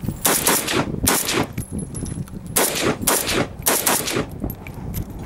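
AK-pattern rifle with a drum magazine firing a quick string of shots, about eight sharp cracks in close pairs and bunches over the first four seconds.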